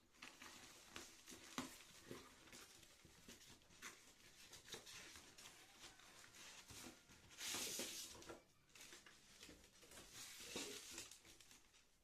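Faint handling noises from unpacking a sewing machine: scattered light knocks and rustling of packaging, with a louder rustle about seven and a half seconds in and another near eleven seconds.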